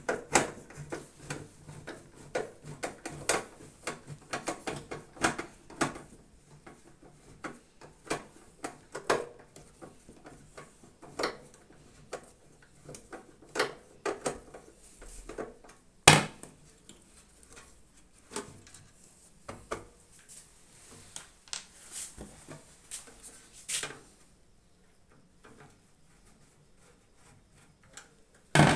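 Irregular clicks, clinks and knocks of a microwave oven's metal body and parts being handled and worked on during disassembly, with a sharp knock about halfway through and another near the end.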